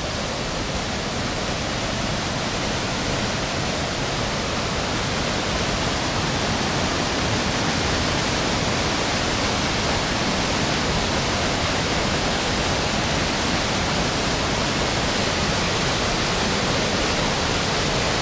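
Steady rush of floodwater pouring off a road down a hillside into a swollen river, growing slightly louder over the first several seconds.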